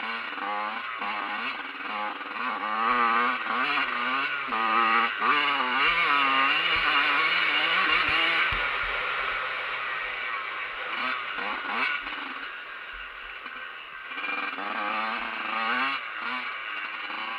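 Dirt bike engine under way, revving up and down repeatedly as the throttle opens and closes; loudest from about three to nine seconds in.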